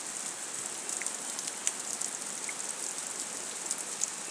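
Heavy rain pouring down: a steady hiss with many small drop ticks through it.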